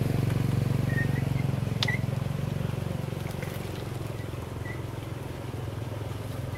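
A small engine running with a steady low, rapidly pulsing drone that slowly fades over several seconds. There is a single sharp click about two seconds in.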